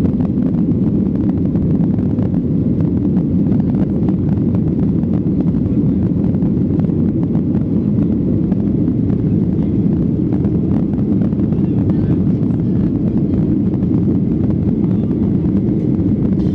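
Cabin noise of a Ryanair Boeing 737-800 climbing after takeoff: the CFM56 engines and the airflow past the fuselage give a steady, low-pitched rumble, heard from a window seat over the wing.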